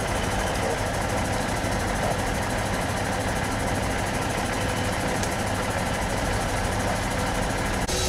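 A large engine idling steadily at an emergency scene, most likely the fire truck's diesel. The sound changes abruptly just before the end.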